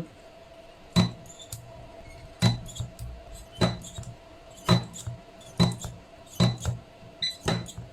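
Battery spot welder firing weld pulses through nickel-plated steel strip layered with copper onto 21700 cells: eight sharp snaps roughly a second apart, two close together near the end, over a faint steady whine.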